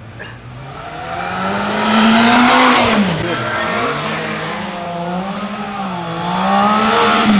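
Racing motorcycle engines at high revs through a hairpin. The engine note climbs, falls sharply about three seconds in, then climbs again in several steps as a bike accelerates out of the bend through the gears.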